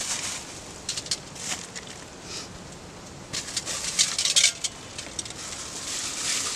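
Plastic wrapping crinkling and rustling as it is pulled off a new camping kettle, with a run of sharp crackles a little past halfway.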